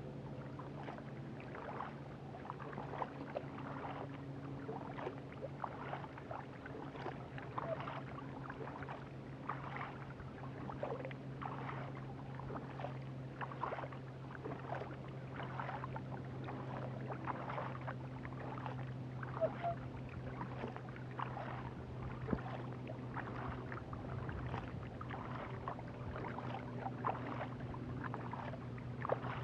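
Double-bladed kayak paddle strokes, the blades dipping and pulling through the water on alternate sides in a steady rhythm of roughly three splashy strokes every two seconds. A steady low hum runs underneath.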